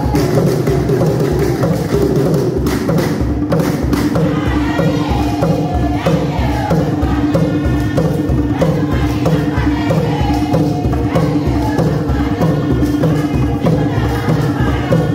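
Tall wooden Chewa hand drums beating a fast, steady rhythm for the Chisamba dance, with a group of women singing a chant over the drumming.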